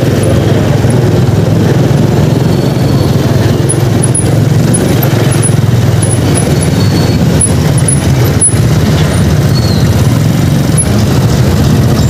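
Steady low engine rumble of slow, congested street traffic, heard from a motorcycle riding in it.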